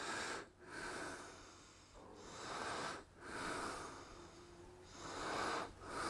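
A man breathing audibly close to the microphone: several slow breaths in and out, each a soft rushing swell.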